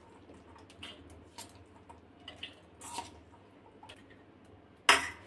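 Wet, sprouted moong chaat squishing as it is scraped and spooned into a small steel bowl, with light clicks of the spoon against the steel. A sharp clink near the end.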